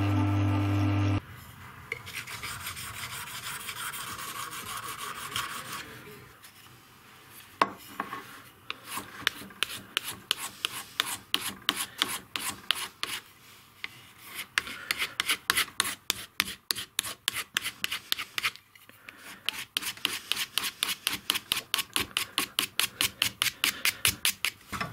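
Carving knife being stropped on a wooden strop charged with green polishing compound: quick back-and-forth strokes, a rhythmic rasping rub at about three to four strokes a second, honing the edge of a damaged Bogorodsky knife. A song cuts off about a second in, followed by a softer, steadier rubbing before the fast strokes start.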